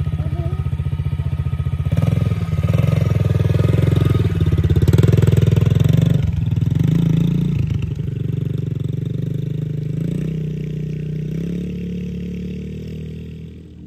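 Yamaha TT-R110 dirt bike's small four-stroke single-cylinder engine idling, then revving up about two seconds in as the bike pulls away. Its pitch rises and dips as the throttle is worked, twice dropping briefly, and the sound fades as the bike rides off.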